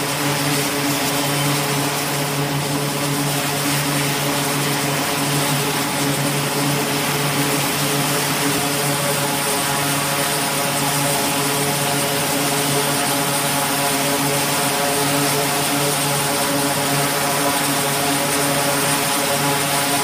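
E-2D Hawkeye's two turboprop engines running at steady power, its propellers giving a constant droning hum, as the aircraft waits for a catapult launch. A thin high whine joins about halfway.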